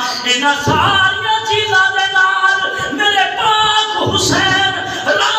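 A man's voice singing verse unaccompanied in a melodic, chant-like recitation, holding long notes that bend up and down in pitch.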